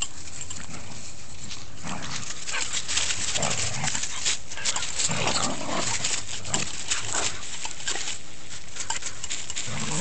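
Small dogs play-fighting: low growls and snarls mixed with scuffling through dry leaves and grass, getting busier about two seconds in.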